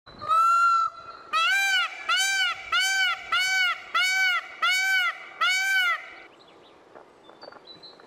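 Indian peafowl (peacock) calling: one level call, then a series of seven loud, rising-and-falling calls about two-thirds of a second apart, stopping about six seconds in. Faint small-bird chirps follow near the end.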